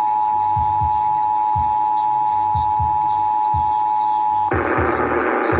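Emergency Alert System two-tone attention signal, a steady dual tone held for about four and a half seconds, then cut off by a harsh buzzing burst of data-like noise.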